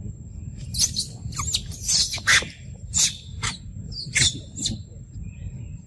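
Young macaques giving a rapid series of about ten short, shrill squeals, starting just under a second in and loudest around the two-second mark.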